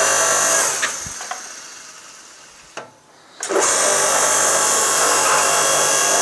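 The electric motor and hydraulic pump of a 5-ton electric log splitter running, then switched off just under a second in and winding down over about three seconds, with a few clicks. It starts up again abruptly about three and a half seconds in and runs steadily on.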